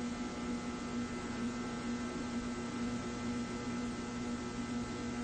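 Steady hum of several fixed tones over a hiss, with no separate firing beats, from the Papp noble-gas engine test rig running very slowly, at about 50 RPM.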